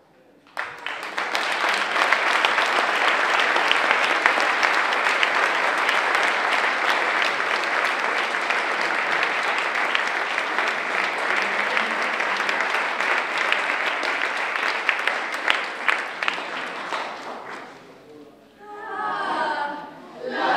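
Audience applauding: dense clapping that starts about half a second in, holds steady, and dies away after some seventeen seconds. A voice speaks briefly near the end.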